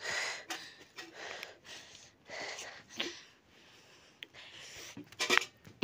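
Breathing close to the microphone: a few irregular breathy puffs about a second apart, with a short sharp click about three seconds in.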